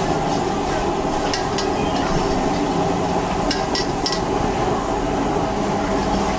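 Wok cooking on a street-stall gas burner: the burner runs with a steady, humming drone while food sizzles, and a metal spatula clinks against the wok a few times.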